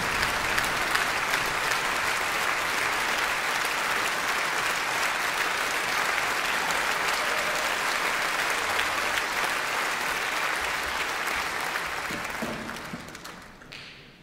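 Concert audience applauding steadily, a dense patter of many hands clapping, which dies away over the last two seconds.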